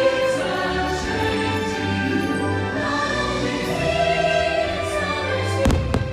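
Choir singing over an orchestra, Christmas show music played over loudspeakers, with a few sharp bangs of fireworks bursting close together near the end.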